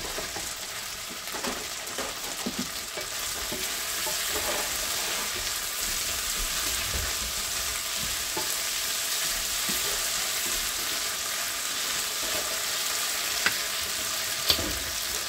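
Gnocchi sizzling as they brown in butter in a skillet, stirred with a utensil that knocks against the pan now and then. Two sharp taps come near the end.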